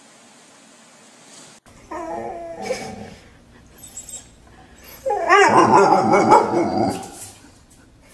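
A dog vocalizing: a short whiny call about two seconds in, then a louder call of about two seconds that wavers up and down in pitch.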